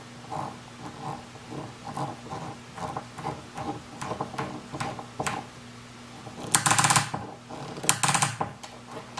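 Hand screwdriver turning an old wood screw into a wooden slab in short twists: repeated short creaks with light clicks, two to three a second. Two louder rattling clatters come about 6.5 and 8 seconds in.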